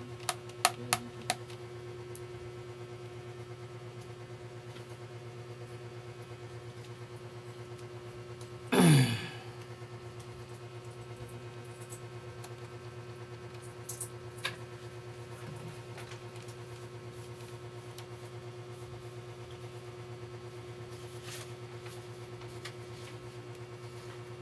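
Small clicks and knocks of a laptop hard disk being handled and fitted, a few near the start and a couple more in the middle, over a steady low hum. About nine seconds in there is one loud, brief sound that falls in pitch.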